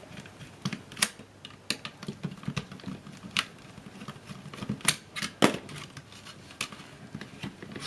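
Small screwdriver backing self-tapping screws out of the plastic body of an Agfa ePhoto 1280 digital camera: light clicks and ticks of metal on plastic at uneven intervals, about a dozen in all, with faint scraping between them.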